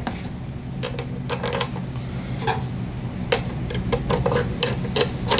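Small metal engine parts clicking and clinking as a carburetor, its linkage rod and spring are worked into place on a Briggs & Stratton 8 hp OHV engine. The clicks are irregular and come more often in the second half, over a steady low hum.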